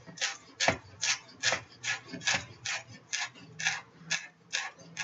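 Knife chopping cilantro finely on a cutting board: a steady run of crisp blade knocks, about two to three a second.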